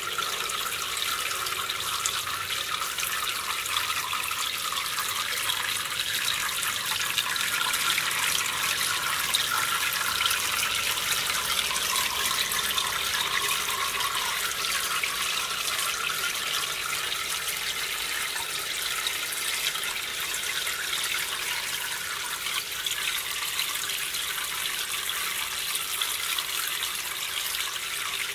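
Water running steadily into an aquarium tank holding freshwater mussels, a continuous trickling splash.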